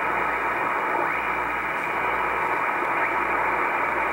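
Shortwave communications receiver in lower sideband being tuned across the 80-metre band: steady static hiss, with faint whistles of signals sweeping past the dial about a second in and again near three seconds.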